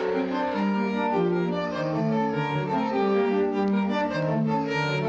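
Background music on bowed strings, violin and cello, with several sustained notes moving at once in a slow melody.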